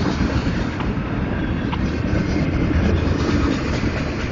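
Freight train cars rolling past at close range: a steady, heavy rumble of steel wheels on the rails, with a couple of faint clicks.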